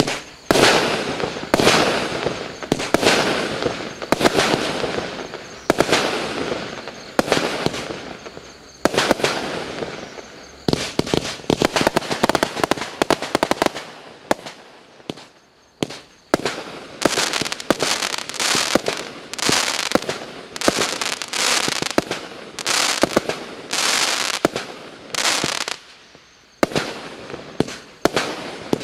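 Klasek C212MF/C firework cake firing: a continuous run of loud bangs, about one or two a second with faster volleys, each bang trailing off before the next.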